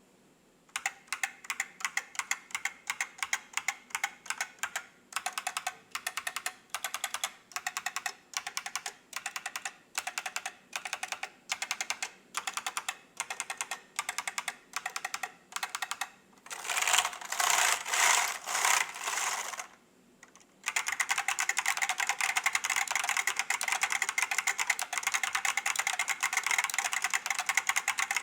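Typing on an IBM 5576-002 keyboard with Alps SKCP plate-spring switches. It opens with evenly spaced little clusters of key clicks, then a louder run of rapid keystrokes about 17 seconds in. After a brief pause it goes on with fast, continuous typing.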